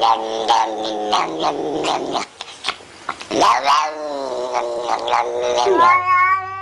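Cat yowling in long, drawn-out, wavering calls, with a short pause about two seconds in.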